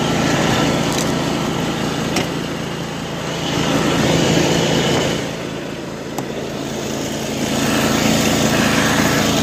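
Riding lawn mower engine running steadily, getting louder about four seconds in, easing off around six seconds and picking up again near the end.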